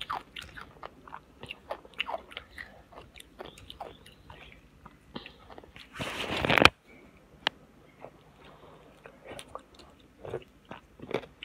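Scattered small clicks and crunching noises. About six seconds in, a louder rushing noise swells for under a second and then cuts off sharply.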